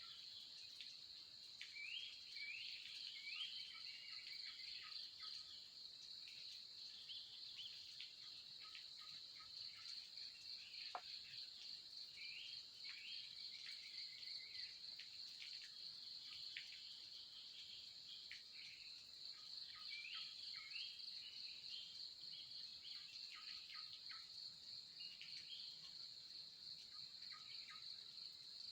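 Insects, likely crickets, chirring steadily in a high, finely pulsing drone, with scattered short chirping calls from other small animals over the top.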